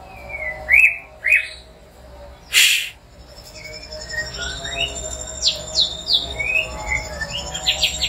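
White-rumped shama calling with short chirps and quick whistled notes that slide up or down, plus one brief harsh burst just before the three-second mark. Faint electronic background music with steady held tones comes in about halfway.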